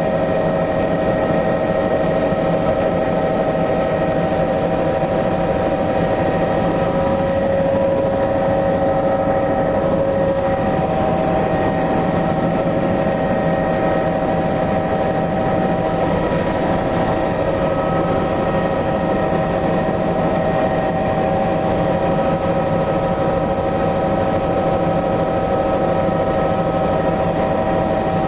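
Helicopter engine and rotor running steadily: a constant loud drone with a steady whine over it.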